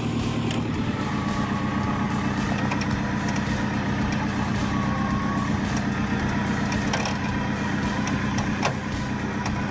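A machine engine running steadily, with scattered sharp cracks and clicks of wood.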